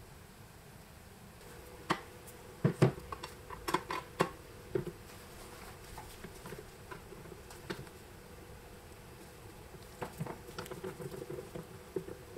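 Handling noises: a cluster of sharp knocks and clicks about two seconds in, the loudest near the start, then a run of lighter clicks and rattles near the end as gloved hands take hold of an old crank telephone.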